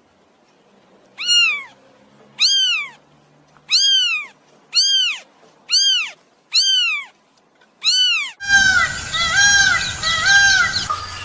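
A cat meowing: seven short, high meows, each rising then falling in pitch, about one a second. Near the end several overlapping meows crowd together over background noise.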